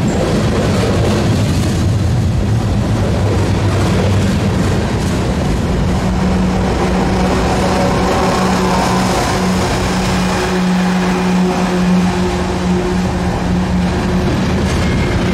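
Diesel-electric locomotive serving as a distributed power unit (DPU) in a freight train passes close by, its diesel engine running with a steady drone.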